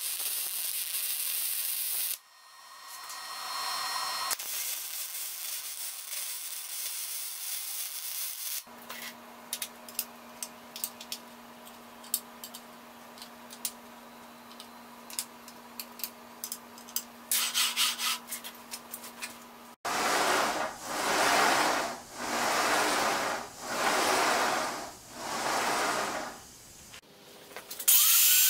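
MIG welder crackling and hissing for about two seconds, then cutting off. Later comes a steady low hum with scattered light clicks of hand-tool work on metal, then about five loud rhythmic rasping strokes.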